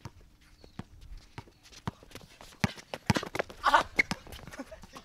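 Basketball bouncing and players' footsteps on an outdoor court: a string of irregular sharp thuds, the loudest about three seconds in. A brief shout comes between three and four seconds in.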